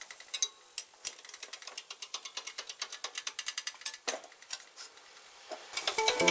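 Hand-operated hydraulic workshop press being worked to straighten a warped steel bracket: a quick run of light metallic clicks, several a second, that stops after about four seconds. Music comes in near the end.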